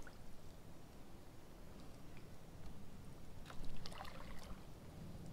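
Faint water sounds around a kayak: light lapping with a cluster of small splashes a little past halfway, over a low steady rumble.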